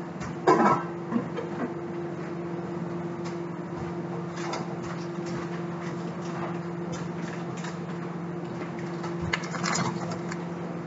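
Steady low kitchen hum, with a few sharp knocks about half a second to a second and a half in, and a short rustling clatter near the end.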